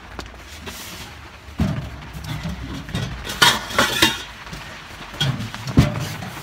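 Stainless steel stovepipe sections clanking and scraping against each other as they are fitted together, with several sharp metallic knocks that ring briefly.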